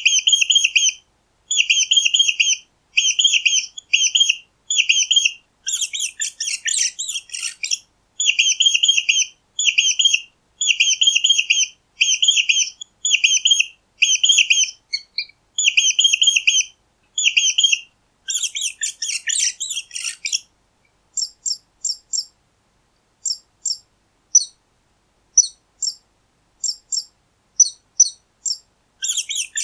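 Mice squeaking: quick runs of short, high-pitched squeaks, with two denser flurries of overlapping squeaks. After about twenty seconds they thin out to single, spaced chirps.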